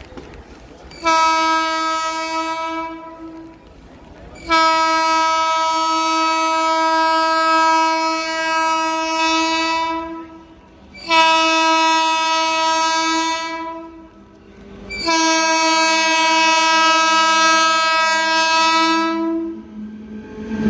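WAG-12 electric locomotive's horn sounding four times: a short blast, a long blast of about five seconds, another short one, then another long one. Each blast is held at one steady pitch.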